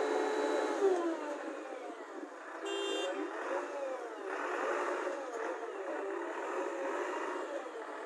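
Vehicle horn held steadily for about a second, dropping in pitch as it stops, over road-vehicle noise. A shorter, brighter horn blast sounds about three seconds in.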